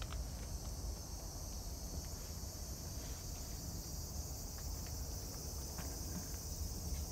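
Steady high-pitched chorus of summer insects, unbroken throughout, over a low rumble.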